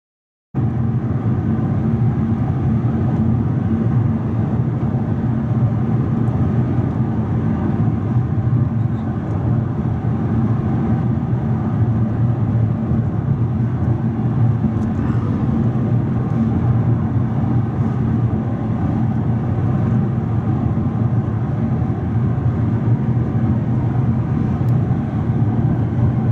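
Steady road and engine noise inside a moving car's cabin, a low hum under tyre rush. It starts abruptly about half a second in.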